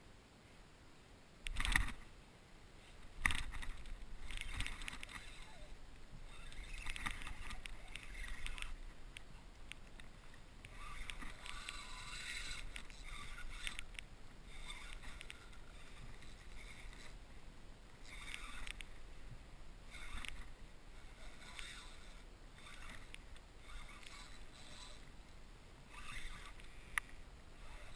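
Water slapping and sloshing against a kayak's plastic hull, with scattered clicks and knocks of gear being handled; two sharp thumps come about two and three seconds in.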